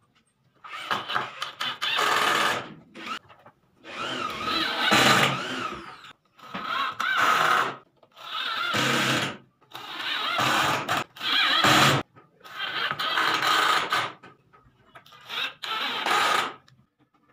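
Electric drill running in about seven short bursts of a second or two each into the wooden side rail of a pool table frame, its motor pitch wavering under load.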